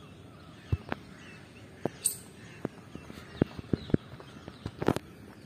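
Footsteps and soft knocks on a paved path, coming irregularly, with faint bird chirps.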